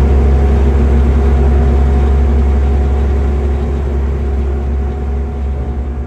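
Skid steer engine running steadily under way, heard from inside the cab as a loud, deep drone, easing off slightly near the end.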